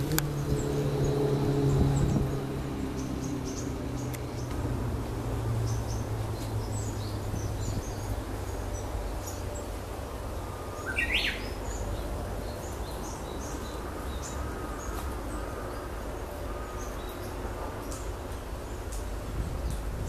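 Small birds chirping in a bamboo thicket: short, high calls scattered through, with one louder rising call about halfway. A passing vehicle's low drone fades away over the first few seconds, over a steady low rumble.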